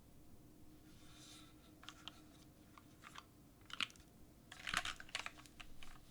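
Mechanical keyboard with lubed Cherry Retooled Black linear switches, an aluminium plate in an O-ring mount and Cherry doubleshot keycaps, being typed on in short, irregular runs of keystrokes. The typing is faint, with the quickest and loudest run about three-quarters of the way in.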